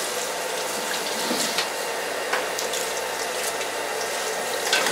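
Water running and sloshing in a basin as whole raw ducks are rinsed and turned over by hand, with a few sharper splashes.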